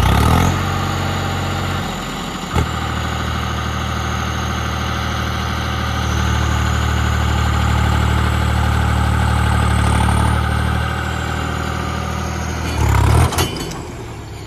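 Tractor diesel engine running steadily at idle, swelling slightly midway, with a brief louder rev near the end as a tractor pulls away. A single sharp click sounds about two and a half seconds in.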